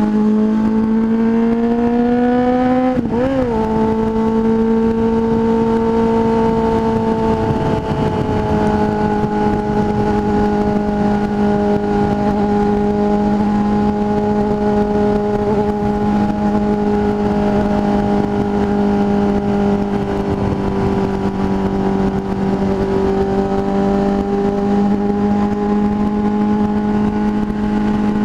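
Motorcycle engine pulling under way, its pitch rising over the first three seconds, wobbling briefly about three seconds in, then holding steady at cruising revs, with wind noise on the rider's microphone.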